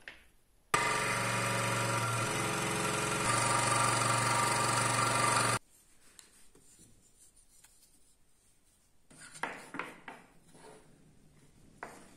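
An electric power tool working wood, running steadily for about five seconds and cutting off abruptly. A few short scraping strokes follow near the end.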